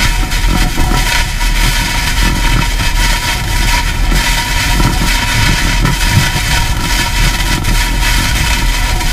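Hurricane-force wind blowing hard with wind-driven rain, buffeting the microphone into a heavy, unbroken low rumble, with a few faint steady whistling tones running through it.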